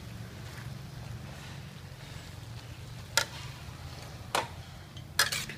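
Metal spatula knocking and scraping against a steel wok of stir-fried vegetables, four sharp clicks in the second half, over a low steady hum.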